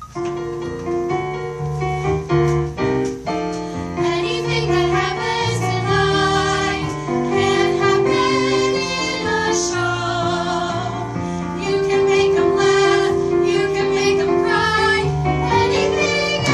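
Piano-led music, starting suddenly with struck chords that fill out into a fuller accompaniment after a few seconds.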